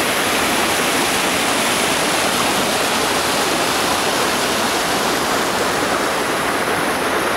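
Mountain stream rushing over rocks and stone slabs, a steady, even rush of water.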